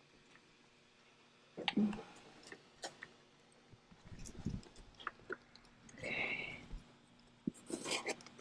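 Small plastic wire connectors and cables being unplugged and handled by hand in an electrical control panel: scattered sharp clicks and light knocks, with a few louder handling bumps.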